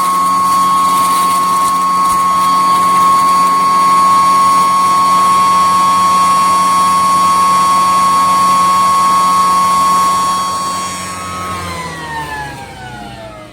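Stainless-steel tooth-plate grain grinder running at full speed with a loud, steady high whine. Near the end it is switched off and the whine falls in pitch and fades as the rotor spins down.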